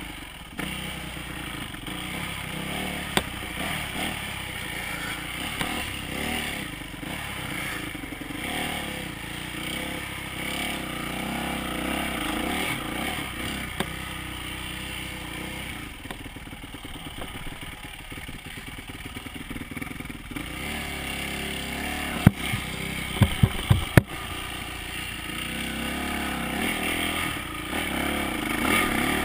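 Dirt bike engine running as the bike is ridden, its loudness rising and falling with the throttle. A few sharp knocks come about three-quarters of the way through.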